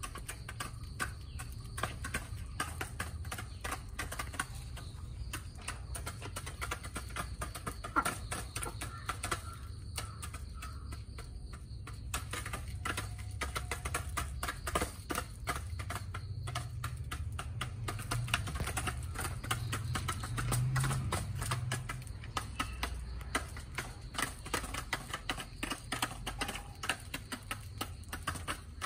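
Chickens pecking feed from a bowl and the dirt ground: a fast, irregular run of small taps. Under it is a low rumble that grows louder about two-thirds of the way through.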